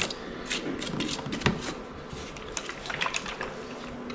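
Irregular small clicks and scraping from handling the plastic dust bin and filter of a Eureka robot vacuum during cleaning.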